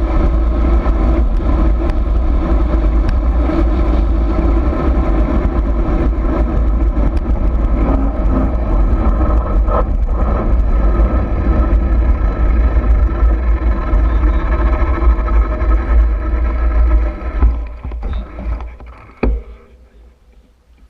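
Steady loud rumble of a vehicle running down a dirt trail, with heavy low wind buffeting on the microphone. About three-quarters of the way through it falls away, leaving a few sharp clicks and knocks.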